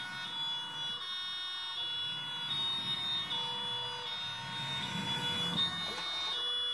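An RC model ambulance's sound module (Beier USM-RC-2) plays a German two-tone Martinshorn through its small speaker, the two tones alternating about every three quarters of a second. Under it there is a low rumble from the model driving, which swells briefly near the end as it passes close.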